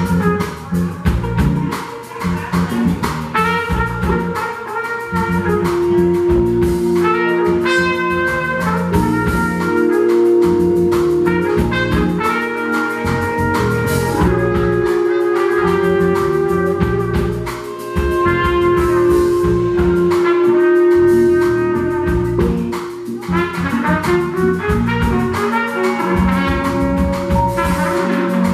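Live band playing jazz: a trumpet plays melodic phrases over drum kit and a keyboard-led rhythm section.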